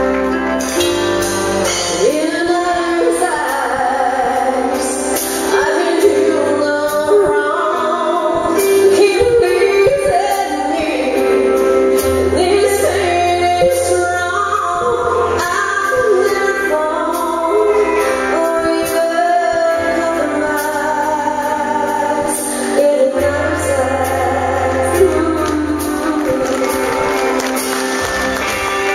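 A woman singing a country song with a band: a steady bass line and drums with frequent cymbal ticks under her voice.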